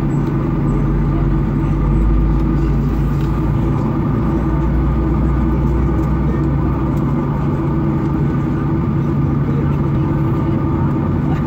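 Steady cabin drone inside a Boeing 737-800 standing on the ground: the hum of the airliner's running engines and air systems, with a deep low rumble that is stronger for the first seven seconds or so and then eases.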